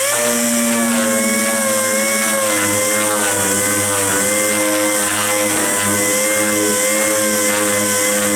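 A motor-driven machine running steadily at high speed, with a slightly wavering hum and a strong hiss over it.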